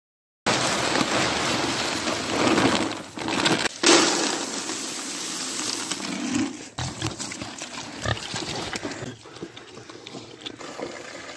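Pigs grunting and snuffling at a metal pan of feed pellets, loudest over the first several seconds. Then a pig eats from the pan, with quieter chewing clicks.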